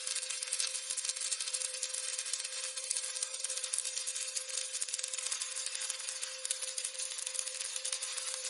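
Stick (SMAW) welding arc crackling and sizzling steadily as a bead is run, with a steady hum underneath.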